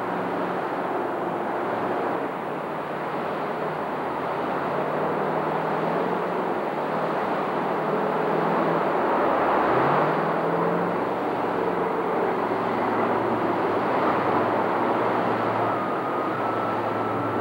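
Jet boat engine running hard as the boat drives upstream through rapids, over the steady rush of fast whitewater; the engine note rises about ten seconds in.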